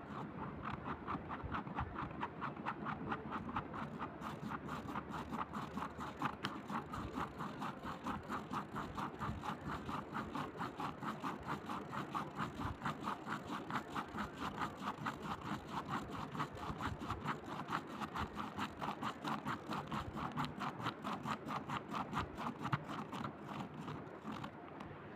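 Steady rhythmic scraping, about four strokes a second, each a short rasping scratch, kept up evenly throughout.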